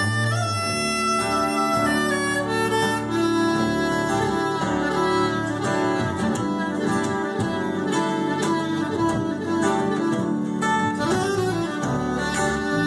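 Live band playing an instrumental break: a soprano saxophone carries the melody over strummed acoustic guitars and upright double bass.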